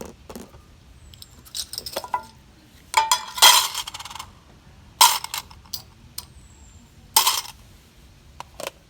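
Small hard objects clinking and clattering as they are handled: a run of sharp clicks and short clatters, the loudest about three and a half seconds in, with more near five and seven seconds.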